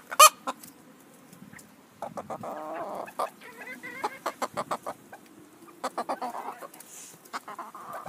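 Chickens clucking: a sharp short squawk just after the start, then bursts of low clucking about two seconds in and again about six seconds in, with many small sharp clicks in between.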